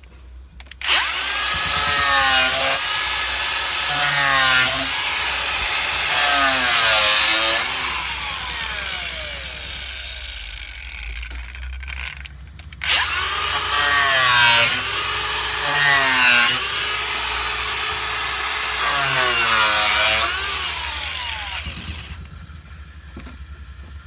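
Angle grinder cutting a black plastic valve box, in two runs of about ten seconds each, its whine dipping and recovering again and again under load.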